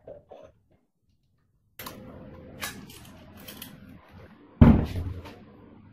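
Motorcycle parts being handled and fitted by hand: a couple of short knocks, then clicks and rattles, and one loud, heavy knock about three-quarters of the way through.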